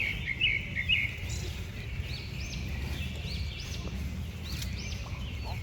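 Several small birds chirping and singing in quick, repeated arching notes over a steady low rumble.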